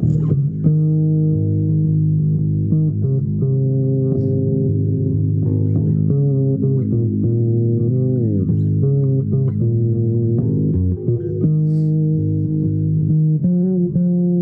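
Improvised instrumental music on a low-pitched string instrument: a run of long held notes, with one note sliding down in pitch about eight seconds in.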